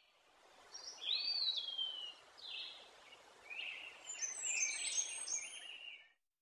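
Songbirds singing: a run of chirps and whistled, gliding phrases over a faint outdoor hiss, which stops suddenly about six seconds in.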